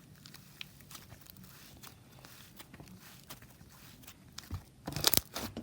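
Slime being squeezed and pressed by hand, giving soft scattered crackles and small pops, with a louder run of crackly squishes near the end.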